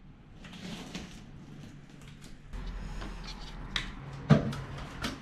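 A few scattered knocks and clicks in a small room, the loudest a single knock about four seconds in as a foot steps up onto an aluminium step ladder.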